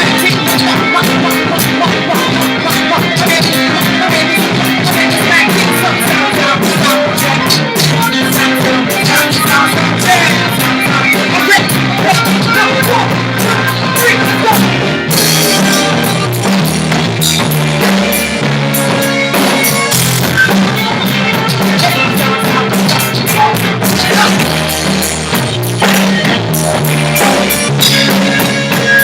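Live band playing a song at rehearsal: drum kit, guitar and bass, with some singing.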